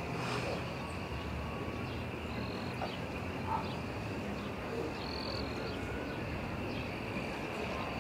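Evening outdoor ambience: a steady high insect drone with short, repeated higher trills, over a low, even rumble.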